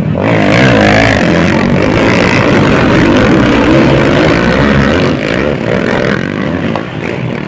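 Motocross dirt bike engines revving hard as the bikes pass close by, the pitch rising and falling with throttle and gear changes. Loudest for the first five seconds, then easing a little.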